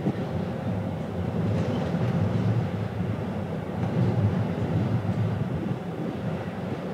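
Steady low rumble aboard a ferry under way at sea, with a faint steady hum and no distinct events.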